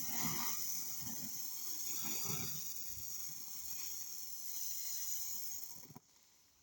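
Drying maize kernels being poured out in a steady hiss, stopping suddenly near the end.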